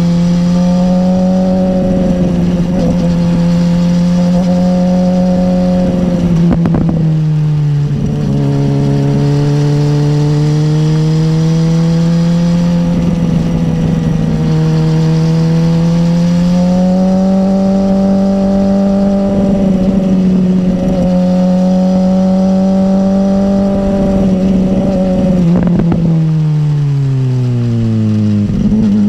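BMW S1000R's inline-four engine running under load with wind rumble on the bike-mounted camera. The engine note drops in a gear change about six seconds in, rises slowly as the bike accelerates, then falls steadily near the end as the bike slows for a bend, and picks up again right at the end.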